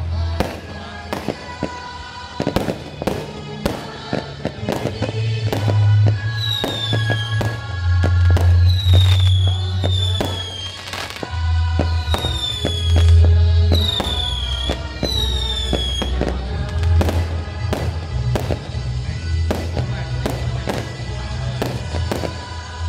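Fireworks display: a steady run of sharp bangs and crackles over loud music with a heavy bass line and a repeated falling synth-like tone in the middle.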